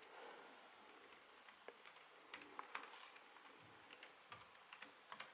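Faint clicking of keys being typed on a Pinebook Pro laptop keyboard: a quick, uneven run of light taps starting about a second in.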